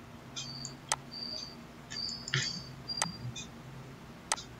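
Three faint sharp clicks, about a second in, three seconds in and near the end, among a few short high-pitched chirps over a low hum.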